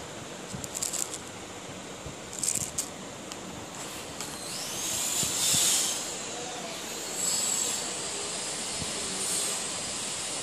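Plastic packaging crinkling in the hands. A louder hiss with a thin high whistle swells up about halfway through, with weaker hissing swells after it.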